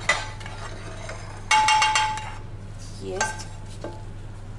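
Spatula scraping grated cheese out of a nonstick frying pan, with a knock at the start and a loud squeaky scrape about a second and a half in, then a few lighter scrapes and clicks.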